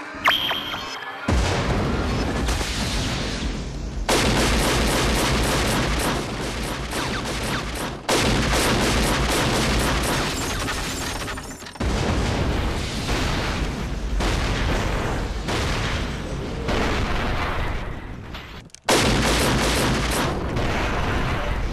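Loud, dense soundtrack music mixed with explosion and gunfire sound effects. It changes abruptly several times, about 1, 4, 8, 12 and 19 seconds in.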